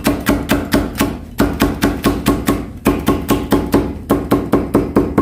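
Chinese cleaver julienning a green bell pepper on a wooden cutting board: quick, even knife knocks on the board, about four to five a second, with two brief pauses.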